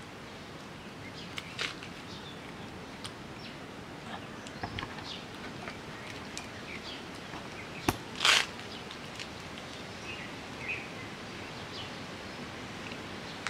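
Steady outdoor background hiss with scattered faint, short bird chirps. About eight seconds in there is a sharp click, followed by a brief, louder rustling burst.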